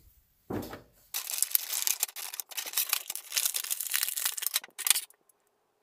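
Plastic packaging of an action figure crinkling and crackling as the figure is worked free of it by hand, stopping near the end.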